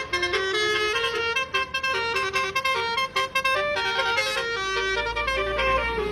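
Basuri telolet horn on a Dewi Sri bus playing a rapid tune of stepped, horn-like notes that change several times a second, over a low rumble.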